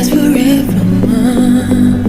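Background music: an electronic track with a steady beat and a sustained synth melody.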